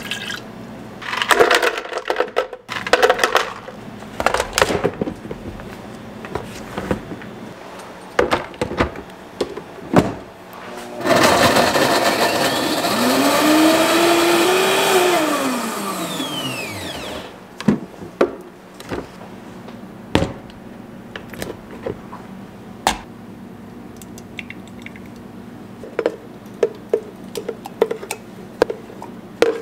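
Vitamix The Quiet One commercial blender running for about six seconds, its motor pitch rising as it spins up and falling away as it winds down. Short knocks and clatter of the jar and counter come before and after it.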